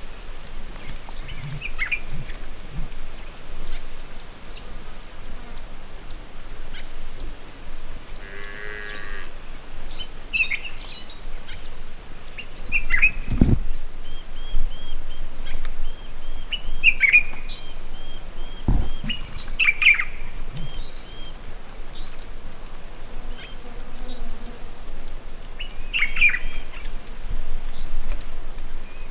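Wild birds calling in the bush: scattered short chirps and whistles, with a run of quick repeated chirps in the middle. Two brief low thumps sound about halfway through.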